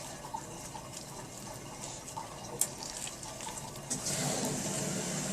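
Water running from a tap, with a few small clicks; the flow gets suddenly louder about four seconds in.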